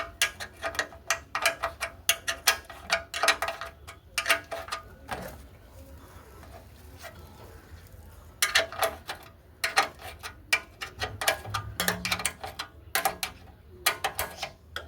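Rapid, regular metallic clicking of a ratchet wrench undoing the bolts of a motorcycle chain cover, in two runs with a short pause between them.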